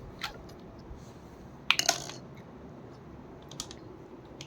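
Small plastic toy kitchen pieces being handled and set down: a few light clicks and knocks, with a short clatter of several clicks about two seconds in.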